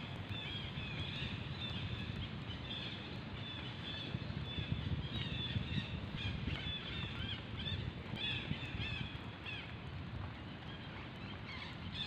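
Repeated short, high chirping calls over a steady low rumble of outdoor noise.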